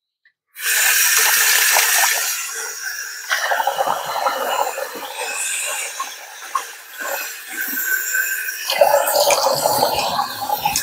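Tap water running into a sink and splashing as a face is wetted before a shave. It starts about half a second in and shifts in texture a few times as the hands scoop and splash.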